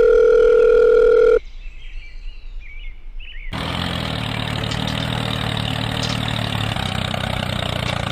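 A steady electronic beep for about a second and a half, then, about three and a half seconds in, an engine comes in suddenly and runs steadily.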